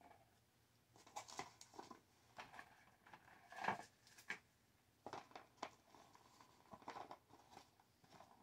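Quiet rustling and light clicks of cords and small plastic parts being handled and lifted out of a cardboard box, loudest a little under four seconds in.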